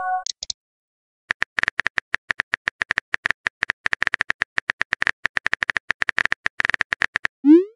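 Rapid phone-keyboard typing clicks, a synthetic key-tap sound effect, running at several taps a second as a text message is typed out. It starts about a second in and stops shortly before the end. At the very start the last moment of a message chime dies away, and just at the end a rising pop begins.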